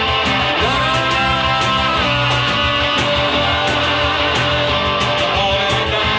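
Live rock band playing an instrumental passage: guitar over bass and drums keeping a steady beat, with notes bent upward in pitch in the first couple of seconds.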